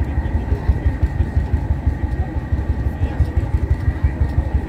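Vintage tractor engine idling with a rapid, even low beat.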